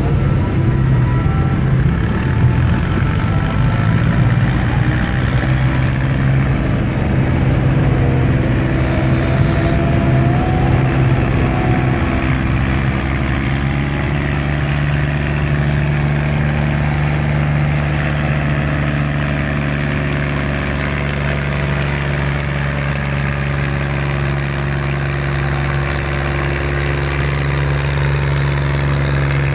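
International 523 tractor's diesel engine working hard at full throttle while it pulls a weight-transfer sled. The drone shifts in pitch at first, then settles to a steady note about halfway in.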